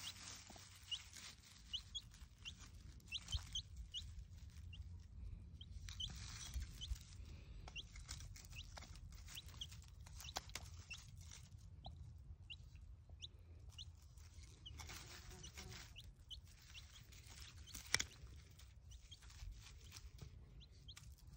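A young chick peeping, short rising cheeps roughly once a second, over the scratch and clink of a small hand fork turning soil, with one sharp knock near the end.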